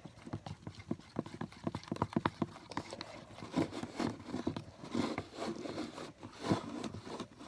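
A stirring utensil mixing glue and blue food dye in a bowl, knocking and scraping against the sides in quick, irregular clicks.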